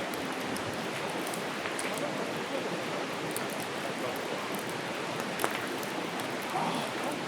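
Wood campfire burning: a steady hiss with scattered small crackles and pops, one sharper pop about five and a half seconds in.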